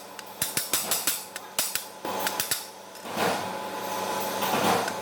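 Rapid light hammer taps on metal, as the small rod piece is driven into the bearing. From about three seconds in, this gives way to a steadier whirring noise that rises and falls.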